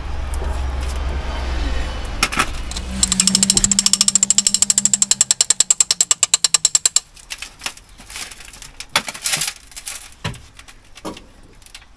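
A hammer-action power tool strikes in a fast, even rhythm of about ten blows a second for about four seconds and stops abruptly. Before it there is a steady low hum, and after it scattered knocks and taps.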